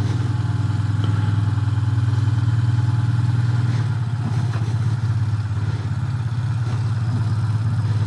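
Motorcycle engine running steadily at low road speed, easing off about four seconds in as the bike slows to pull over.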